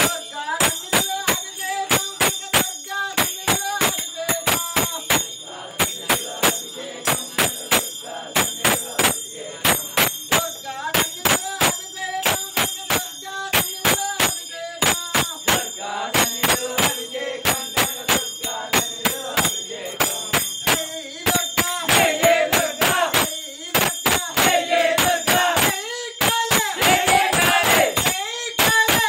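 Group devotional singing with steady rhythmic hand clapping, about three claps a second, over a bell ringing steadily. The singing grows louder over the last several seconds.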